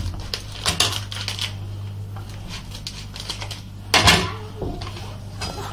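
A utensil stirring and clinking against a stainless steel bowl, mixing powdered milk into liquid milk, with scattered scrapes and a louder clatter about four seconds in.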